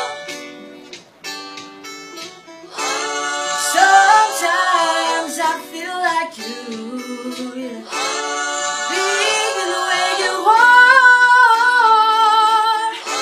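Song played on acoustic guitar with sung vocal lines, layered live with a loop pedal. It thins to a quieter, sparser passage for the first few seconds, and the fuller guitar-and-voice texture comes back in about three seconds in.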